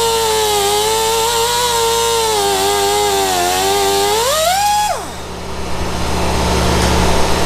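Electric motor of a homemade bolt-cutting tool running with a high, wavering whine that sags under load as it cuts through a bolt. About five seconds in the pitch rises briefly, then the motor is switched off and winds down, leaving a noisy whir and a low hum.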